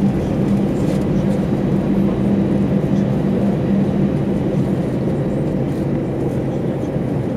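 Airbus A320 jet engines running at low power as the airliner taxis, heard inside the cabin: a steady drone with a low hum over a rumble.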